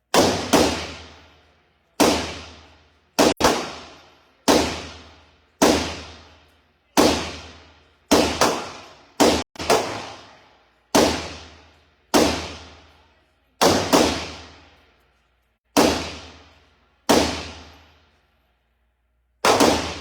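Gunshots at an indoor shooting range: about twenty single shots at uneven intervals of half a second to two seconds, some in quick pairs, each echoing off the range walls for about a second.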